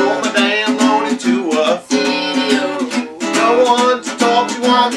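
Acoustic guitar strummed in a steady rhythm as blues accompaniment, with a bending, wavering melody line over the chords.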